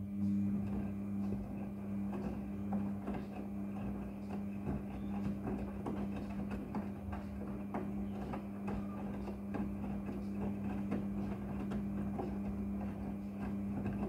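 Front-loading washing machine tumbling a load of jeans in its wash cycle: a steady motor hum under constant sloshing and splashing of water and wet denim in the turning drum.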